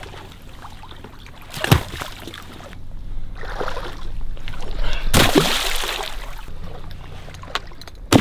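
Water sloshing and splashing in a shallow marsh as people move about in it, with a few sharp knocks: one about two seconds in, a louder splash-like burst about five seconds in, and one at the very end.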